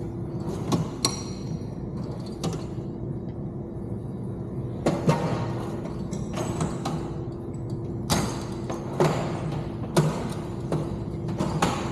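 Irregular clicks and knocks from hands handling plastic connectors and wiring for a car radio's steering wheel control.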